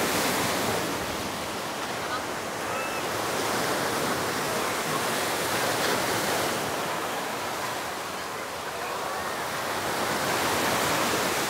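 Surf breaking on a sandy beach: a steady wash of wave noise that swells and eases, loudest near the start, about halfway through and near the end.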